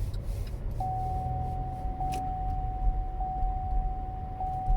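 Low rumble of a car's engine and road noise heard from inside the cabin as it pulls away. About a second in, a steady high electronic tone starts and holds, with faint ticks roughly once a second.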